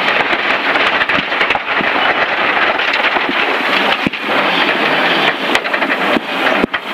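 Loose stones rattling and spraying against the underbody and wheel arches of a historic Ford Escort Mk1 rally car on a gravel stage, heard from inside the cabin as a loud, dense hiss full of sharp knocks. The engine runs underneath.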